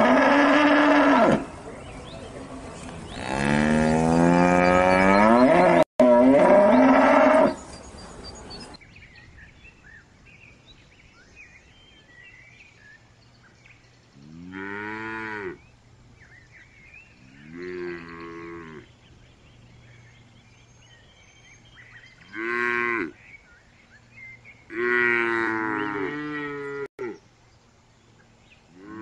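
Highland cattle mooing: two loud, long moos, the second lasting about four seconds. Then young black calves bawling in four shorter calls spread over the rest of the time.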